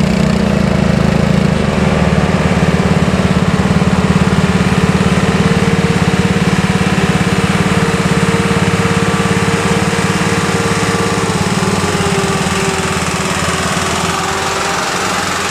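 Bus diesel engine with a 'ngorok' (snoring) exhaust pulling uphill: a loud, rough, rapidly pulsing rumble, steady throughout, with a faint whine that drops a little in pitch about eleven seconds in.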